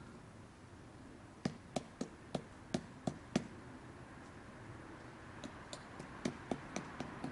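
A series of short, sharp knocks or taps, about three a second, in two runs: seven louder ones, then a lighter run a couple of seconds later.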